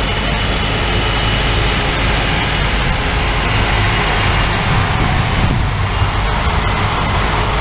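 Two IH rotary combines running steadily while cutting soybeans, heard as a continuous engine drone.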